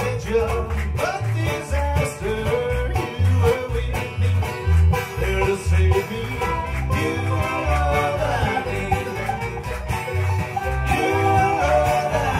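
Live bluegrass band playing: banjo and strummed acoustic guitars over a steady low beat, with men singing into microphones.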